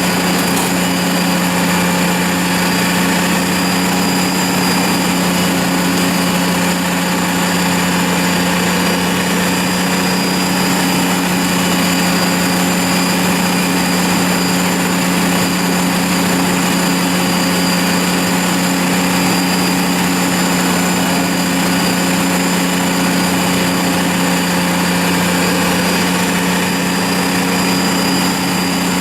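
A large machine's engine running steadily at constant speed, with a strong even hum.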